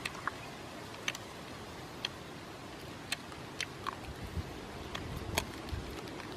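Sharp ticks repeating about once a second, from an unseen source. From about four seconds in, close dull thumps and smacks come in as a man bites and chews grilled squirrel meat off the bone.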